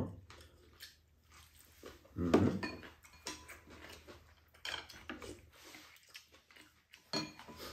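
Chopsticks and spoons clinking and scraping against ceramic bowls and a pan during a meal, with a few small chewing and eating noises. A brief voiced sound comes about two seconds in.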